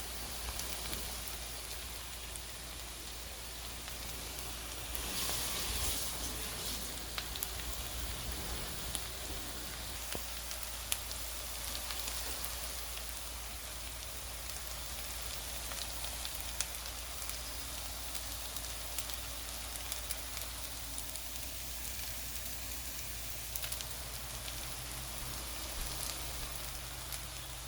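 Potato pancakes frying in a little olive oil in a pan: a steady sizzle with scattered crackling pops, swelling briefly about five seconds in.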